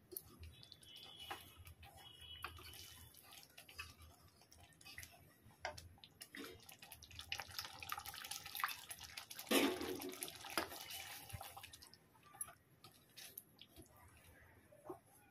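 Water poured from a glass into curry in a metal pan, a splashing pour in the middle, loudest near the end of the pour. A wooden spatula clicks and scrapes against the pan before and after.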